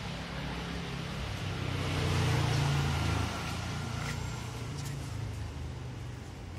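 A motor vehicle passing on the street: its engine and tyre noise build to a peak about two to three seconds in, then fall away, over steady street background noise.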